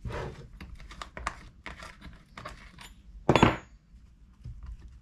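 Hand tools working on a Stihl MS 200T chainsaw's side cover: a run of small metal clicks and knocks, with one louder metallic clatter about three and a half seconds in as a T-handle wrench is set down on the metal workbench.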